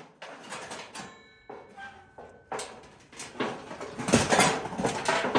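Sheets of old tin being handled: scattered knocks and scrapes, a brief metallic ring about a second in, and busier clattering near the end.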